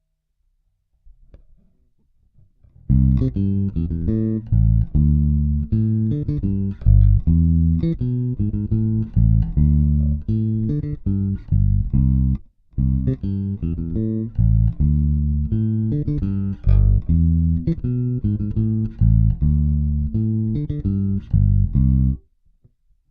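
Bacchus Woodline five-string electric bass playing a repeated exercise phrase of plucked notes. The notes start about three seconds in and stop near the end, with a short break about halfway.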